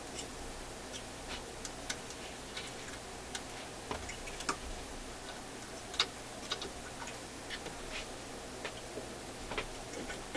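A thin metal pick tool ticking and scraping against the record player's sheet-metal changer mechanism: irregular light clicks, the sharpest about six seconds in, over a steady low hum.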